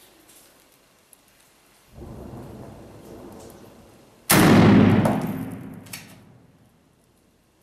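A low rumble of combat starts about two seconds in, then a single very loud blast hits with a sharp onset and echoes away for about two seconds, followed by a smaller crack.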